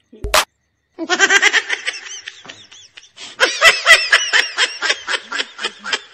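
Laughter in a quick run of short 'ha-ha' pulses, starting about a second in after a brief click and lasting about five seconds.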